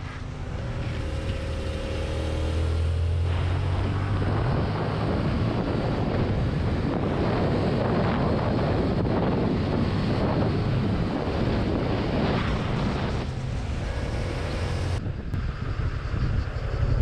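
Yamaha MT-07's parallel-twin engine running at road speed, its low drone plainest in the first few seconds, under heavy wind rushing over the microphone.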